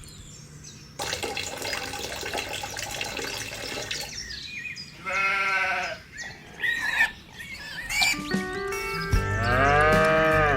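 Background music with a farm animal bleating several times over it, the longest and loudest bleat near the end.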